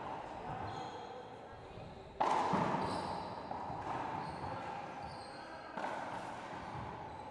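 Racquetball rally: the hollow rubber ball is struck hard, with one loud crack about two seconds in and another near six seconds. Each hit hangs in the enclosed court's long echo.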